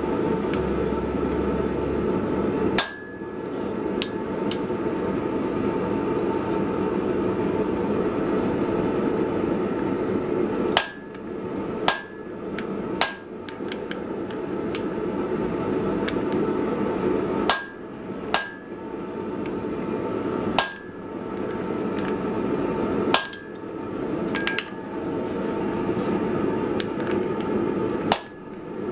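Blacksmith's hand hammer striking a red-hot coil-spring steel bar on the anvil: about ten blows at irregular intervals, with a long pause early on and pairs of quick blows later, each with a short metallic ring. A steady rushing noise runs underneath.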